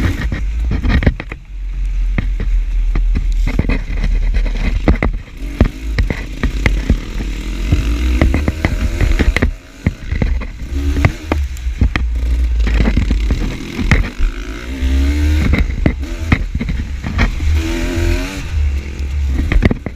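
Dirt bike engine revving up and down repeatedly under a heavy low rumble, with frequent sharp knocks, clatter and scraping as the bike rides over rough ground.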